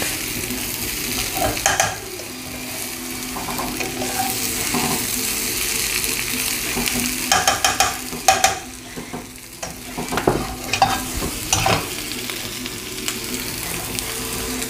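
Sliced potatoes and onions sizzling as they fry in grease in a skillet, with a spatula scraping and knocking against the pan as they are turned, in a few clusters of strokes about halfway through and again a couple of seconds later.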